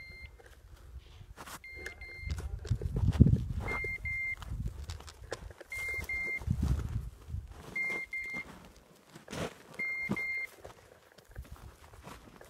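Electronic double beeps from a hunting dog's beeper collar, one pair about every two seconds, over low rumbling and handling noise.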